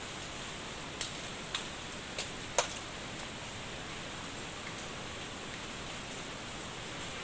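Steady background hiss with a faint high steady tone. Four short sharp clicks or snaps come in the first three seconds, the last one the loudest.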